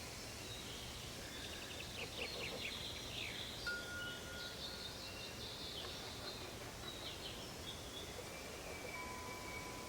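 Wind chimes tinkling in short clusters over a steady hiss of forest ambience, with a few long, thin held tones ringing out near the middle and again near the end.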